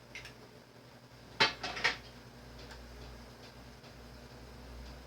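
Kitchenware clattering: two sharp knocks close together about a second and a half in, then a few faint clicks, over a low steady hum.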